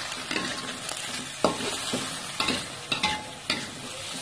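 Stir-frying in a wok: greens and fish balls sizzling in hot oil while a metal spatula scrapes and knocks against the wok about every half second.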